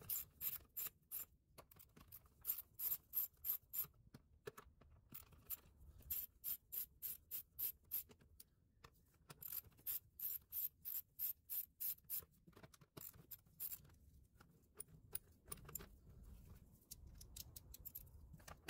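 Hand ratchet clicking in runs of about four clicks a second, with short pauses between strokes, as it backs out the bolts holding the lid on an air intake box.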